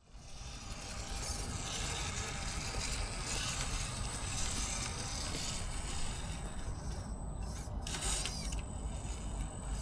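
Axial Capra RC rock crawler driving on a wet trail: its electric motor and drivetrain running steadily over a low rumble, with the high hiss briefly dropping away about seven seconds in.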